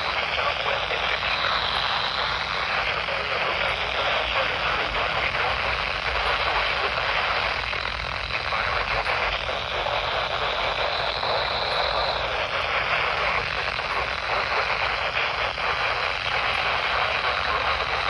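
Handheld weather radio's speaker hissing with heavy static on a weak NOAA Weather Radio signal. A faint spoken forecast comes through the noise, mixed with a second, interfering station.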